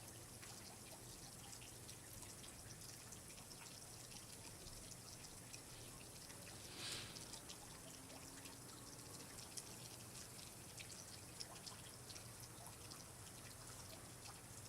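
Faint water dripping and trickling, with scattered small drips and one slightly louder brief rush about seven seconds in.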